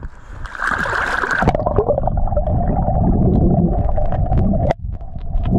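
Underwater sound as a snorkeller swims in shallow, silty water: a short hiss of water over the microphone, then muffled water rushing with many scattered clicks. It drops out briefly nearly five seconds in.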